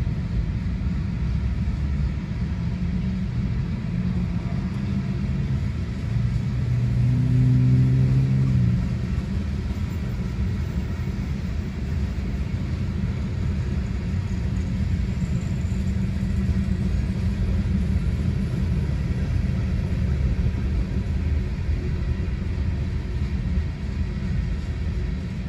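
Union Pacific mixed freight train passing a grade crossing: freight car wheels rolling on the rails, making a steady low rumble. The rumble swells briefly about seven seconds in.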